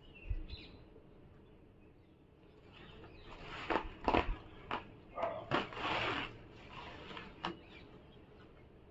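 Paper towel being pulled and handled: a run of sharp crackles and short rustles lasting a few seconds, starting a few seconds in.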